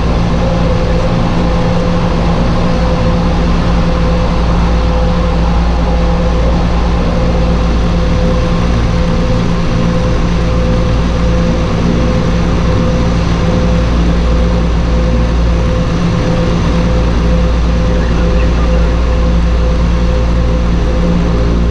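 Twin Garrett TPE331-10 turboprop engines of a Turbo Commander running steadily at low taxi power. A steady mid-pitched tone sits over a low hum.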